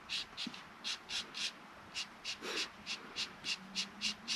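Faint scratchy strokes of colouring in on paper, short and quick, about three or four a second.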